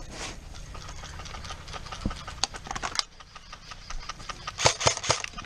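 Airsoft gun shots: scattered single shots, a quick run of shots a little before halfway, and three louder shots near the end.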